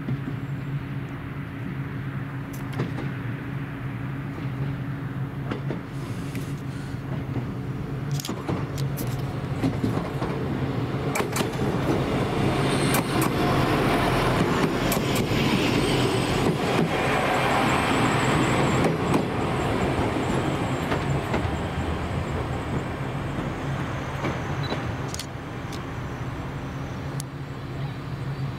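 SA133 diesel railcar arriving and passing close by, its engine running steadily under a rising rush of wheel and running noise that peaks mid-pass and then fades. A few sharp clicks stand out as the wheels cross rail joints, with a faint high squeal while it is closest.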